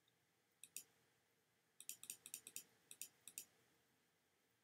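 Faint, sharp clicks of computer input: a pair about half a second in, then two quick runs of four or five clicks each, as a value is set in a settings dialog.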